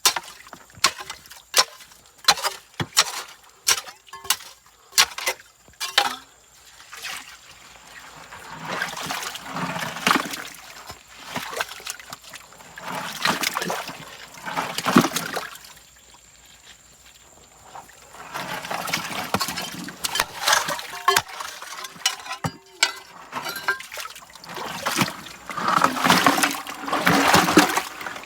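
River sand and gravel being washed in a gold pan. A run of sharp clicks and knocks of stones comes first, then repeated swells of sloshing water, each a few seconds long.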